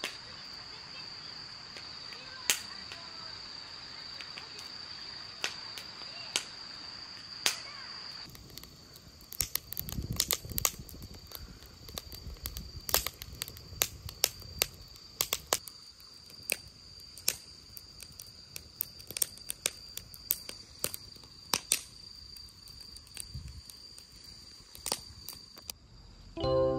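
Insects, crickets by their sound, trilling in one steady high tone, with scattered sharp clicks and snaps that come more often after about eight seconds.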